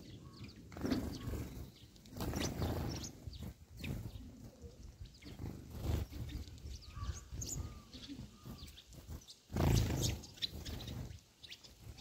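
Faint chirps from a flock of sparrows feeding, under repeated low rumbling swells on the microphone; the loudest swell comes about ten seconds in.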